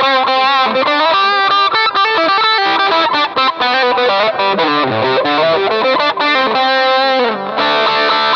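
Electric guitar played through a Shark Rock You Drive distortion pedal, with a little delay after it. A fast lead phrase with string bends, ending on a held note.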